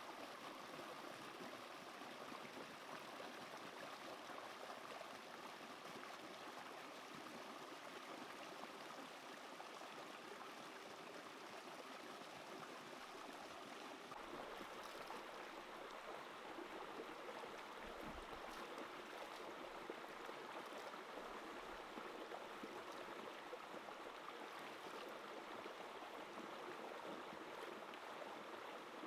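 Shallow mountain stream rushing and splashing over rocks and boulders: a steady, even burble of white water.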